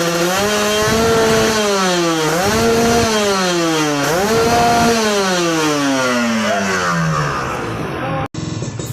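Kawasaki Ninja 150 R/RR two-stroke single-cylinder engine with a racing expansion-chamber exhaust, revved with three throttle blips, each rising, holding and dropping back. After the last one the revs fall away slowly. The sound cuts off abruptly near the end.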